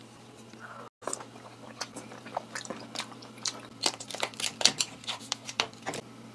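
Steamed lobster shell being cracked and pulled apart by hand: a run of crisp cracks and crunching snaps, densest and loudest about three to four seconds in.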